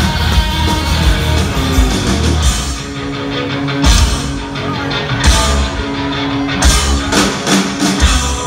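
Hard rock band playing live and loud: electric guitars, bass and drum kit. A note is held from about two and a half seconds in, heavy drum hits fall at about four and five seconds, and a quick drum fill comes near the end.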